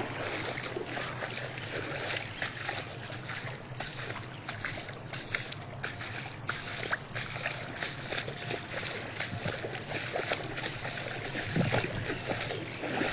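Shallow floodwater splashing and sloshing without a break, with many small splashes throughout.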